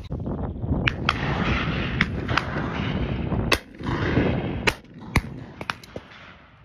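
Shotguns firing on a driven game-bird shoot: about ten sharp reports spread over a few seconds, the loudest near the middle, over a steady rushing noise.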